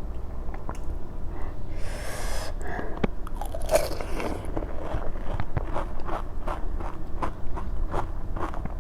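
Close-up chewing of crisp pani puri shells filled with potato and mint water, a run of small crunches several times a second.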